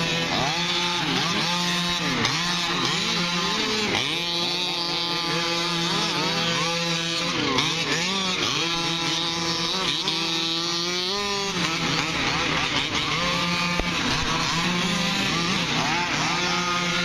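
Several 1/5-scale gas RC short-course trucks racing, their small two-stroke engines revving over one another. The pitch rises and falls again and again as each truck accelerates and lets off through the corners.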